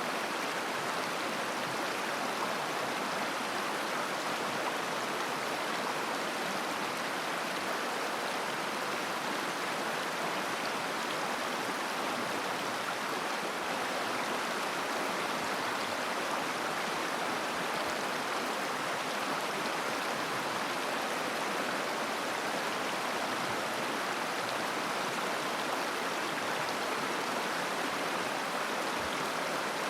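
Mountain river flowing over stones: a steady, unbroken rush of water.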